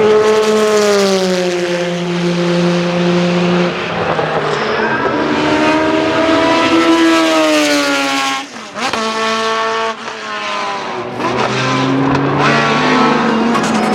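Group C prototype race car engines running hard as cars pass one after another, each engine note sliding down in pitch as it goes by and climbing again as the next accelerates, with a short lull about two-thirds through.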